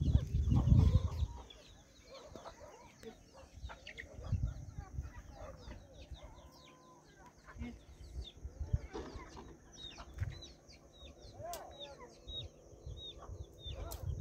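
Chickens clucking, with many short high chirps throughout. A loud low rumble fills the first second and a half, and weaker ones come and go later.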